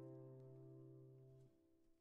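The last chord of a plucked-string early-music piece ringing out and fading. Most of it cuts off about one and a half seconds in, leaving near silence.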